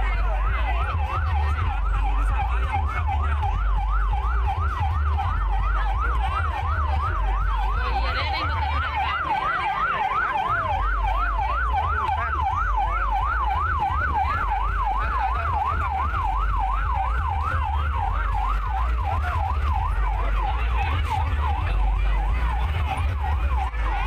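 Fire truck siren sounding a fast yelp, its pitch sweeping up and down about three times a second without a break, over a deep, steady low rumble.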